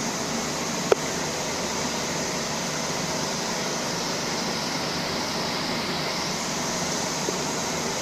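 Steady mechanical noise, like machinery or a fan running, with one sharp click about a second in.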